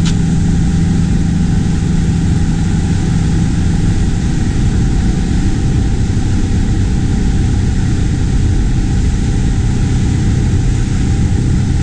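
A Suzuki outboard motor pushes a center-console boat at planing speed with a steady drone. Wind and water rush past at the same time.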